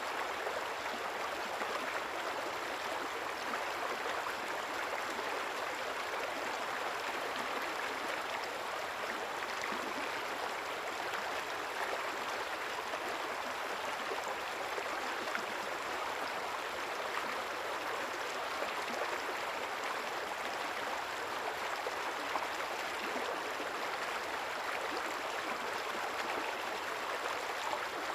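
River water flowing and gurgling over stones, a steady, even rush.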